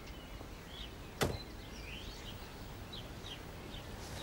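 Small birds chirping over a quiet outdoor background, with one sharp knock about a second in.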